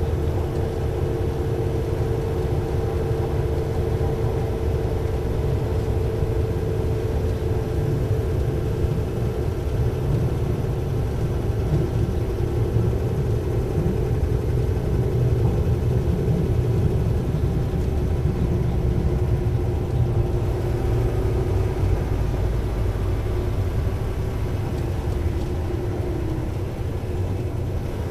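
Diesel engine of an Alstom LINT 41 H railcar, a steady low rumble with a humming tone that dips slightly in pitch near the end.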